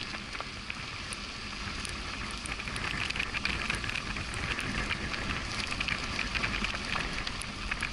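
Rolls-Royce Cullinan's tyres rolling over a gravel dirt road, heard close to the front wheel: a steady crunch with a low rumble and many small crackling clicks of loose stones.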